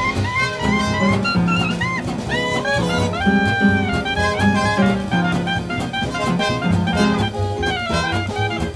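Swing band playing jazz: a clarinet plays the lead melody, with bends and slides, over piano, plucked double bass and drums with cymbals.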